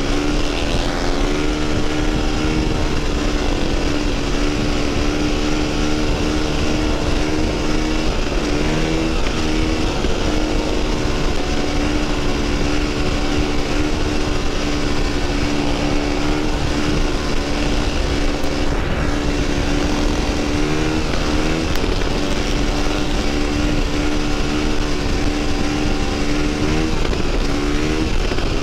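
Dirt bike engine running steadily at highway speed, its pitch dipping and recovering briefly a few times, with heavy wind rush on the microphone.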